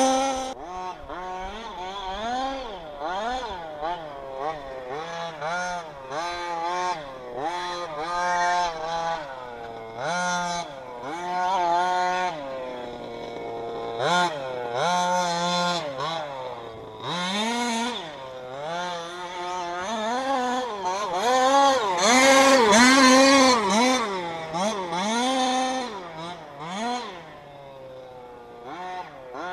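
Two-stroke petrol engine of a 1/5-scale RC buggy, with a reed-valve crankcase and tuned pipe, revving up and dropping back again and again as the throttle is worked around the track, heard from some distance.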